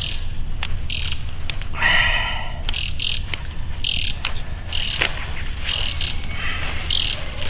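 Birds chirping in short, repeated high calls, with one lower, louder call about two seconds in. Under them comes the rustle and snap of pea plants as pods are picked by hand.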